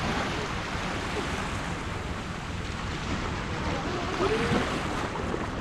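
Small waves washing onto a sandy shore in shallow water, with wind buffeting the microphone; a voice is heard briefly about four seconds in.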